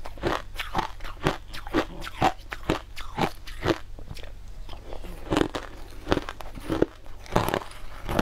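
Crushed ice being chewed: a run of sharp, crisp crunches at an uneven pace, roughly two a second.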